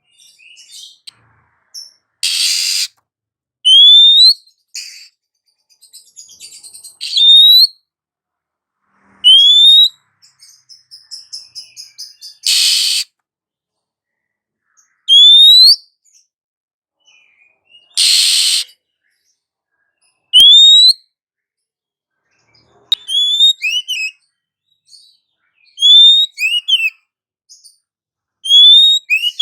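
Female oriental magpie-robin calling: short rising whistled notes repeated every few seconds, broken by three loud harsh rasping calls and soft rapid chattering, with the notes coming quicker in pairs near the end.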